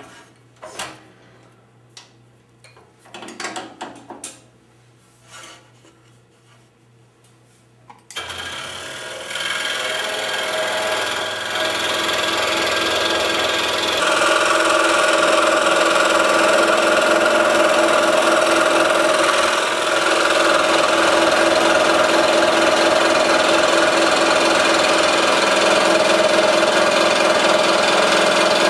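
A few light clicks and taps as the saw blade is threaded through a drilled hole and clamped. About eight seconds in, the scroll saw switches on and runs steadily, its number 7 blade cutting through the wood, louder from about fourteen seconds in.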